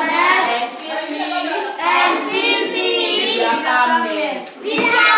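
Children singing, their voices wavering in pitch.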